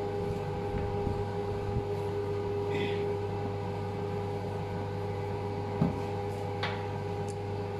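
Steady electrical hum of a running kitchen appliance, with faint scrapes and a soft knock from a spatula folding batter in a stainless steel bowl about six seconds in.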